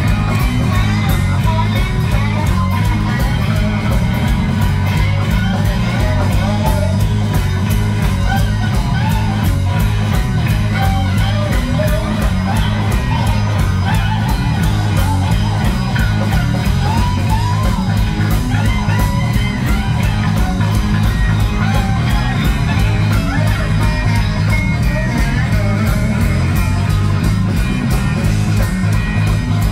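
Live band playing loud, upbeat music: electric guitars over heavy bass and a steady drum beat.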